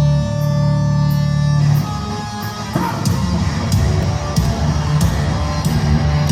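Live hard rock band playing. A held, sustained chord rings for the first couple of seconds, then the full band comes in with heavy electric guitar, bass and drums, with cymbal strikes at an even pace of about one and a half a second.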